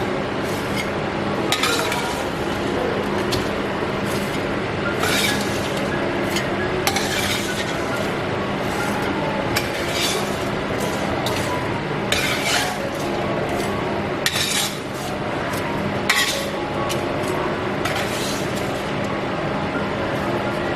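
Kitchen utensils clinking and scraping against dishes or a pan now and then, every couple of seconds, over a steady hiss.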